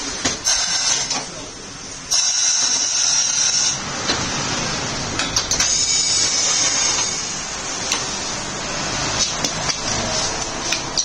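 Tyre-changing work: three hissing bursts, each about a second or more long, among scattered sharp clicks and knocks of tools.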